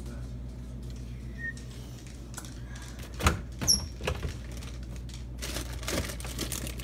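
Refrigerator being rummaged through with its door open: two sharp knocks about three seconds in, a brief high squeak just after, then rustling, over a steady low hum.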